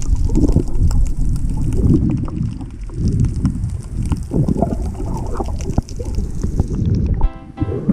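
Muffled low rumbling and sloshing of water around an action camera's submerged housing, with faint scattered clicks. Background music comes in near the end.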